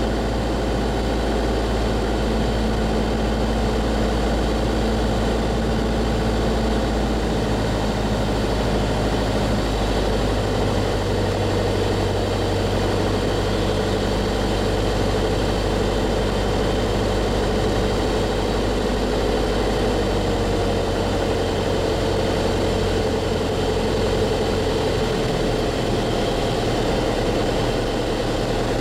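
Piston engine and propeller of a light single-engine aircraft droning steadily, heard from inside the cockpit on final approach. About ten seconds in, the engine note shifts slightly, a change of power setting, then holds steady.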